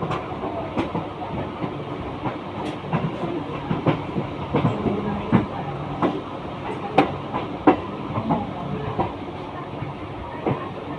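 Mumbai suburban local train (an electric multiple unit) running, its wheels clattering over the rails with many irregular clicks and knocks over a steady rumble.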